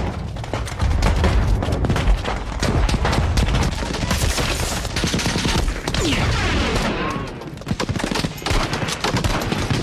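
Battle gunfire in a war film soundtrack: rifles and automatic weapons firing rapid, overlapping shots.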